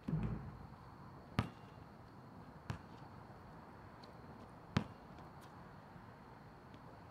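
A basketball hitting the rim with a low thud at the start, then three sharp single bounces of the ball on an asphalt court, spaced one to two seconds apart, the last the loudest.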